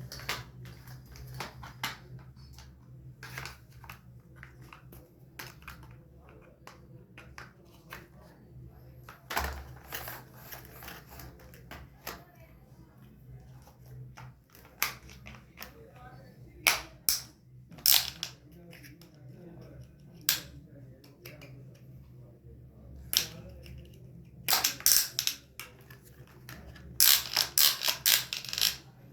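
Toy cars being handled: irregular sharp clicks and taps of hard plastic, coming in quick clusters near the end, over a steady low hum.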